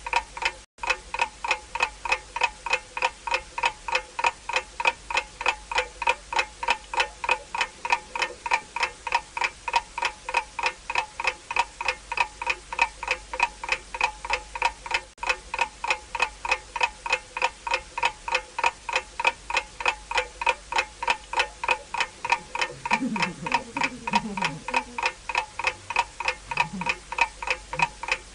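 A clock-style timer ticking steadily, about three bright, ringing ticks a second, marking the time of a timed eating challenge. A faint, brief voice is heard near the end.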